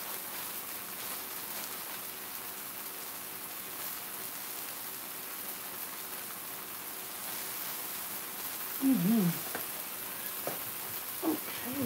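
Tomato wedges and chopped garlic sizzling in oil in a nonstick frying pan: a steady crackling hiss. A brief vocal sound cuts in about nine seconds in, and a shorter one near the end.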